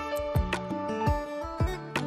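Background music: a gentle instrumental track with plucked guitar-like notes over a steady beat.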